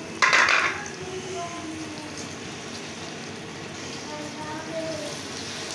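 Boneless chicken and onions frying in hot ghee in an aluminium pot as a spoon stirs them: a loud burst of sizzling about a quarter second in, then a steady sizzle.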